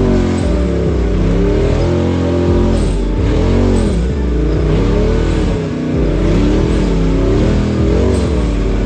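Side-by-side UTV engine revving up and down over and over as the throttle is worked, its pitch rising and falling roughly every second or two.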